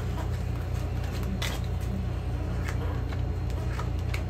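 Playing cards being dealt and laid down one at a time on a cloth-covered table, a few short soft clicks, over a steady low hum.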